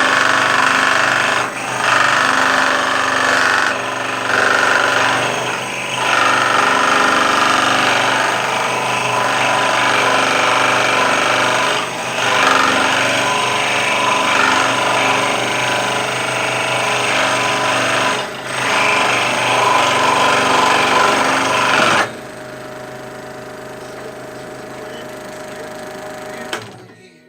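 Scroll saw running and cutting through wood with a loud, steady reciprocating buzz that dips briefly a few times. About two thirds of the way through it drops to a quieter steady run, then stops near the end.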